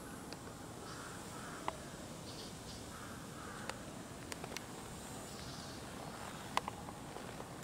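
Faint outdoor background noise with a few faint bird calls in the first few seconds and several short, sharp ticks scattered through.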